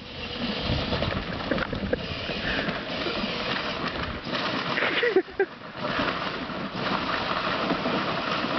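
Power Wheels Jeep ride-on, upgraded to 24 volts, driving: a continuous rough rumble of its electric drive and hard plastic wheels rolling over rough ground, with a brief dip about five seconds in.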